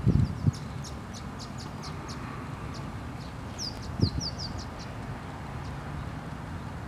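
Small birds chirping: many short, high chirps and a few quick downward-sweeping notes, over a steady low rumble. There are dull thumps at the start and again about four seconds in.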